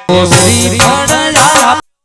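Loud instrumental devotional folk music with a wavering, gliding melody line over accompaniment, cutting off suddenly to dead silence near the end.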